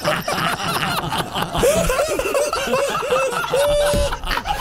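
Two men laughing hard together into studio microphones: a quick run of short 'ha-ha' pulses, several a second, with one drawn-out laugh near the end.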